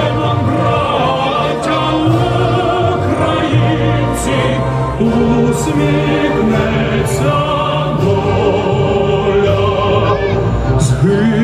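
A song playing, with a held, wavering sung line over sustained backing and a low bass, and a few sharp percussion hits.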